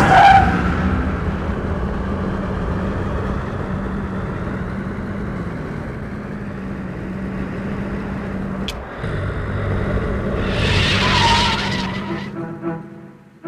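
A car engine running as the car drives off, with a tire squeal at the start and a louder rush as the car speeds past about eleven seconds in. Music comes in near the end.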